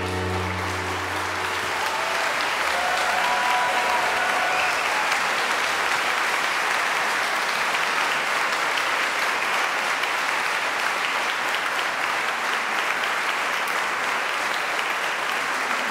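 Concert-hall audience applauding steadily at the end of a song, the ensemble's last low note dying away in the first second.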